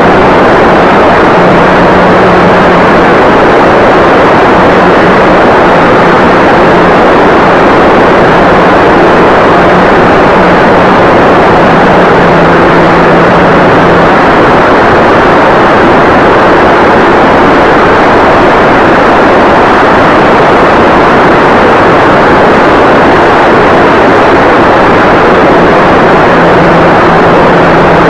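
Loud, steady, overloaded rush of wind and electric motor with propeller, with a faint steady hum, as picked up by an 808 keychain camera riding on a foamboard RC plane in flight.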